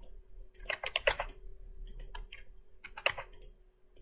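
Computer keyboard keys being typed in three short bursts of clicks, over a faint steady hum.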